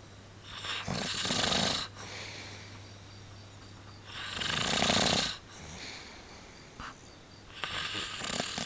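A sleeping person snoring: three rasping snores about three and a half seconds apart, over a steady low hum.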